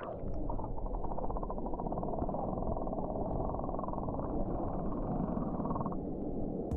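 Vehicle running: a steady low engine and road rumble with a fast even pulse.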